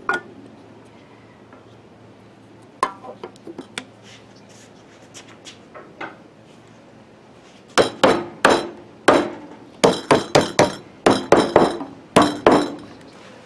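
A wooden-handled stirring tool knocking and clinking against the inside of a small metal can of screen-printing ink, as the ink is mixed with its catalyst and retarder. A few light clicks come first, then about a dozen sharp knocks in quick, uneven succession over the last five seconds.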